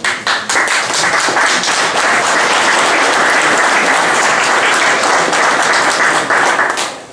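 An audience applauding: the clapping starts suddenly, holds steady, and dies away near the end.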